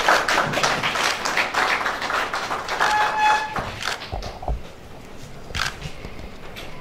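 A small group clapping in an office room, dense for about two seconds and then thinning to scattered claps and taps. A short steady tone sounds about three seconds in.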